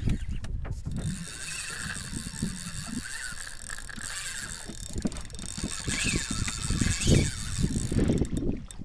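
Spinning reel's drag slipping and buzzing as a hooked fish pulls line off against the bent rod. The buzz starts about a second in and rises and falls in pitch a few times, over low knocks from handling the rod.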